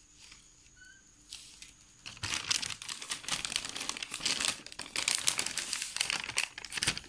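Sheet of glossy glace paper crinkling and rustling as hands handle and fold it around a cardboard shoe box. It starts about two seconds in, after a quiet opening.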